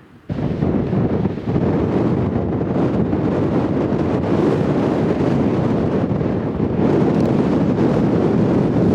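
Strong wind buffeting the camera microphone, a loud, steady rumbling rush that starts abruptly just after the beginning.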